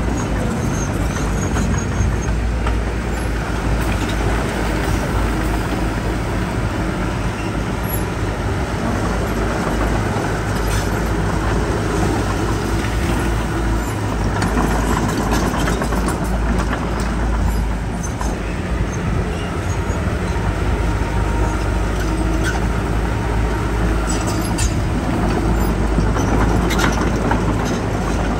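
Heavy diesel earthmoving machinery running steadily under load, a constant low rumble with a few scattered sharp clicks.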